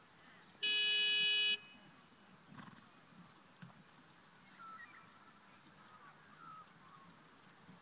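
A single horn blast just under a second long: one steady pitched tone that starts and stops abruptly. Faint bird chirps follow over a quiet outdoor background.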